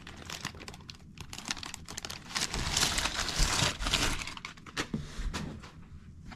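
Packaging being unwrapped and opened by hand: crinkling and rustling with many small clicks, loudest in the middle.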